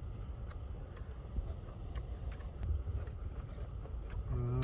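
Low wind rumble on the microphone with a few faint clicks, and a short hummed man's voice near the end.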